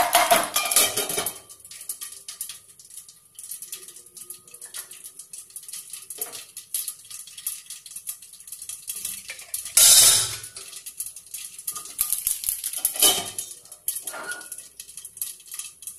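Mustard seeds, dried red chillies and cumin spluttering and popping in hot oil under a steel lid, with sharp irregular pops throughout. In the first second or so a spoon scrapes the pan and the lid clinks against it, and about ten seconds in there is one louder burst.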